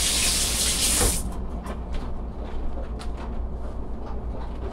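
Kitchen tap running, shut off about a second in. A few faint clicks follow.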